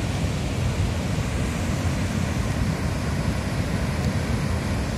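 Floodwater rushing past in a torrent: a steady, dense rush of water, heaviest in the low end.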